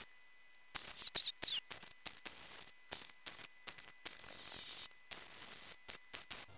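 PerioScan ultrasonic scaler tip working on a tooth root, giving a high-pitched whistle that glides up and down in pitch. It comes in about a dozen short stretches that start and stop abruptly, beginning about a second in.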